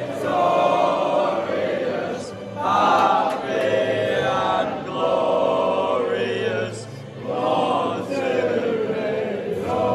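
Stadium crowd singing together in slow phrases, with short breaks between them.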